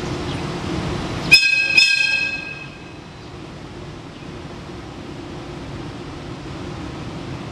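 Electric locomotive's whistle sounded twice in quick succession, a short high-pitched toot about a second in and a second, slightly longer one right after, over a steady low hum from the standing locomotives that drops away as the whistle ends.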